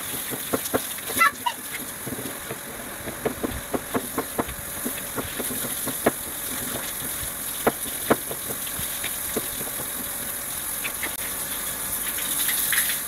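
Kitchen knife slicing sausage on a plastic cutting board: irregular taps of the blade against the board over a steady background hiss, with a brief high chirp about a second in.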